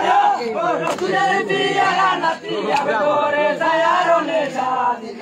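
Many male voices singing together in chorus: a Bengali jarigan folk song.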